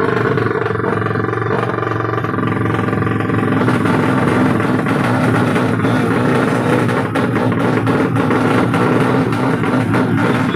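Tuned 200 cc four-stroke underbone drag-bike engines running loud and revving. The sound turns rougher and fuller about four seconds in.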